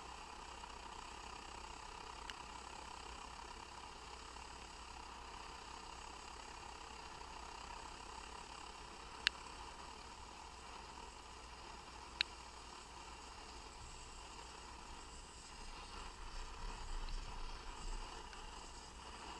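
Optimus Hunter camping stove burning under a covered pot of water with a faint, steady hiss. Two sharp ticks come about three seconds apart midway, and a low rumble rises and falls near the end.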